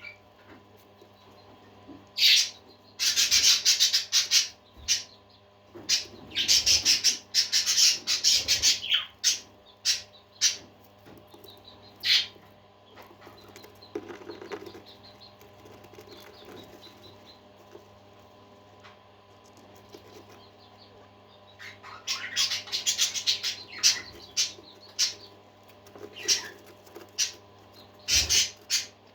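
Pet parakeets chirping and chattering in quick, high bursts, with quieter gaps between the bursts, over a faint steady hum.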